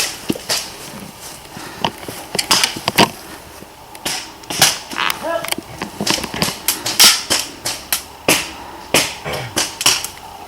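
Airsoft guns firing during a skirmish: many sharp pops at irregular intervals, several a second at times, single shots mixed with short strings.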